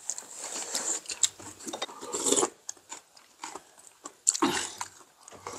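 Close-miked eating sounds: noisy slurps and chewing, loudest in two bursts about two seconds in and again about four and a half seconds in.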